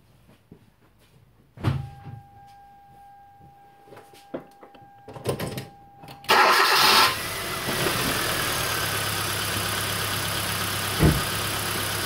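A thump, then a steady electronic tone for a few seconds. About six seconds in, the 2011 Kia Soul's four-cylinder engine cranks briefly and catches, then idles steadily. Cylinder two is not firing: its coil gives no spark, which is the cause of the misfire.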